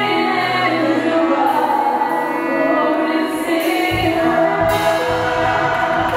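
Live gospel worship song sung in Luganda: a woman singing lead over a band, held notes with their overtones. About four seconds in a deep bass line comes in under the voice.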